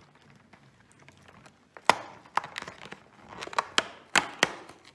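Cardboard door of a chocolate advent calendar being pressed and torn open along its perforations by hand. A few quiet rustles come first, then a series of sharp snaps and crackles from about two seconds in.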